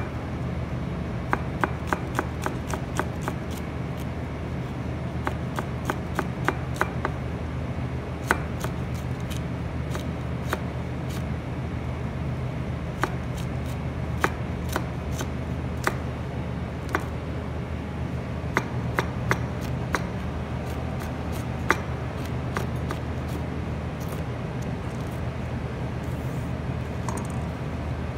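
Chef's knife slicing green chillies into rings on a cutting board: quick, irregular knife taps in short runs with pauses between them. A steady low hum runs underneath.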